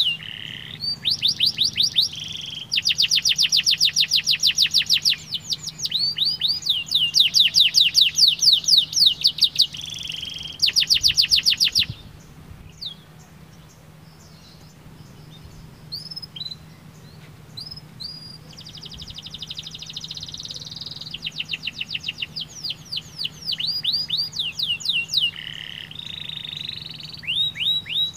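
Domestic canary singing: fast rolling trills of rapidly repeated notes. Partway through the song drops to a few seconds of scattered short chirps, then the trills start again.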